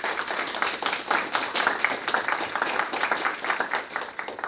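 A small audience applauding, many hands clapping at once. The applause stops fairly abruptly near the end.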